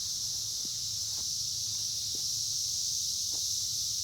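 Steady, high-pitched drone of a cicada chorus, with a few faint ticks from footsteps or rustling plants.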